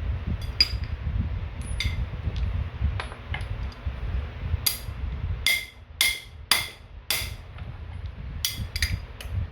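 A dozen or so light metal hammer taps on a socket, driving the ebike's new bottom bracket in. The taps are irregular and ring, come thickest in a quick run a little past halfway and again near the end, over a low rumble that fades about halfway through.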